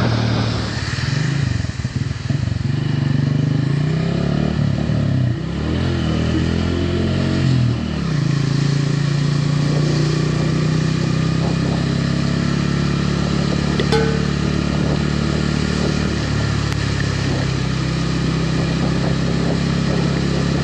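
Honda CB125f's small single-cylinder four-stroke engine on the move. Its note rises and falls for the first eight seconds or so, then holds a steady pitch while cruising.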